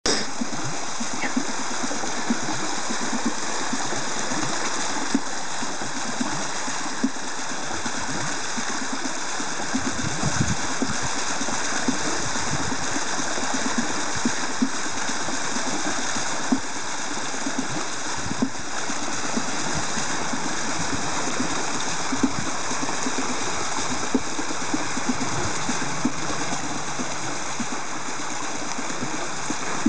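Water pouring from a wooden trough onto a small wooden water wheel and splashing as the wheel turns: a steady rush of falling water with brief louder splashes scattered through it.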